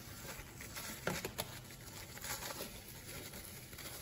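Plastic cling wrap crinkling and rustling as it is peeled off a ball of bread dough by hand, with a few sharper crackles about a second in.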